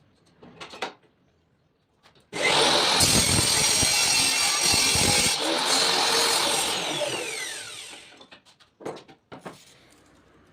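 Table saw switched on about two seconds in, running and cutting wood for about four seconds. It is then switched off, its blade winding down with a falling whine. A few light knocks from handling wood come before and after.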